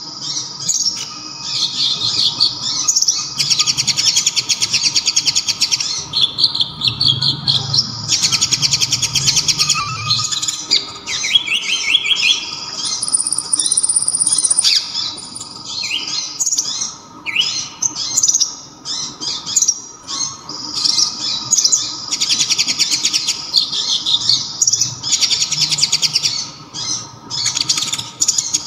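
Kolibri ninja (konin), a sunbird, singing a loud, sharp song filled with mimicked kapas tembak phrases. Stretches of very fast trilled notes lasting a second or two alternate with short chirps and quick rising notes.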